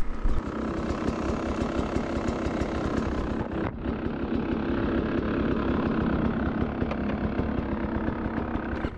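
Beta 300 two-stroke dirt bike engine running steadily at low revs, with a brief break about three and a half seconds in.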